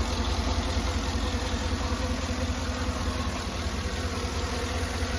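2014 Cadillac Escalade's V8 engine idling smoothly, a steady low throb with no change. It is running just after a radiator replacement and is described as purring like a kitten.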